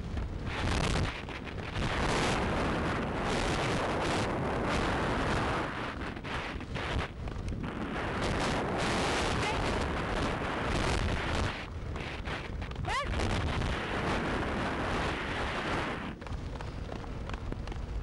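Rumble and rattle of a dog-pulled dryland racing rig rolling fast over a paved road, with wind buffeting the rig-mounted microphone. The noise dips for a moment a few times, and there is one brief rising squeak about two-thirds of the way through.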